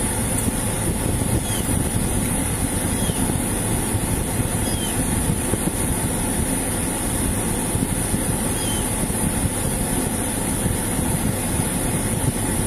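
Steady low rumble of an idling vehicle, with a constant high-pitched hiss over it and a few faint short chirps.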